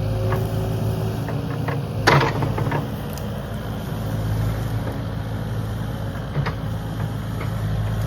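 Kubota KX080 excavator's diesel engine running steadily as the machine tears brush and a small tree loose. There is a loud crack about two seconds in, and scattered snaps and knocks follow.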